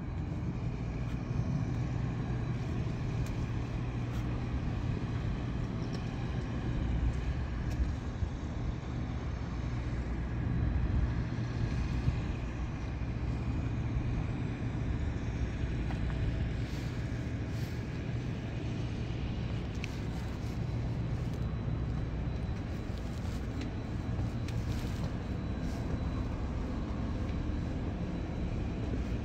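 Steady low machine rumble with a constant hum, like a running engine.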